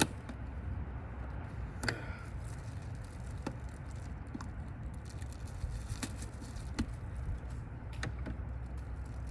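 A few sharp, isolated clicks and light knocks of small parts being handled, spaced a second or more apart, over a steady low hum.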